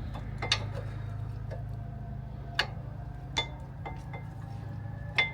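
Worn brake pads and the caliper's metal hardware clinking as they are handled and taken out: a few sharp metallic clicks, some leaving a brief ringing tone, over a steady low hum.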